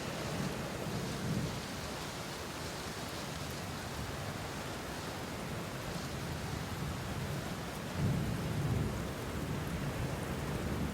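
A low rumbling that swells near the start and again about eight seconds in, over a steady hiss like rain.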